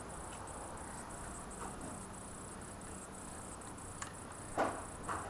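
Insects chirping steadily at a high pitch, with regular brief breaks, and a few light knocks near the end.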